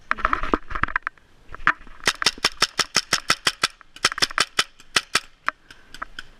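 Paintball marker firing a rapid string of shots, about six or seven a second, in two bursts with a short break between them and one last shot after.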